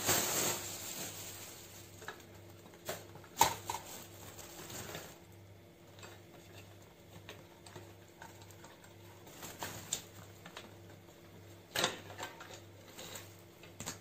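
Plastic wrapping rustling as the wire grilles and plastic blade of a floor fan are unpacked and handled, with scattered clicks and knocks of the parts; the sharpest knock comes about three and a half seconds in.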